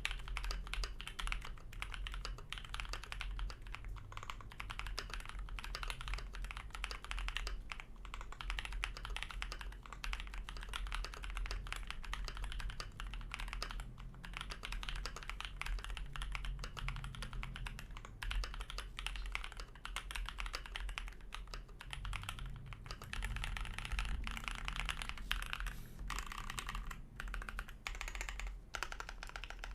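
Continuous typing on a custom 65% mechanical keyboard: lubed AEboard Naevy tactile switches on a brass plate in a KBD67 Mk II aluminium case, with PBT keycaps, giving a dense, unbroken run of keystroke clacks. A steady low hum runs underneath.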